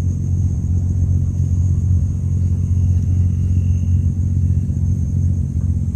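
Steady low rumble with no clear pitch, and a faint steady high-pitched whine above it.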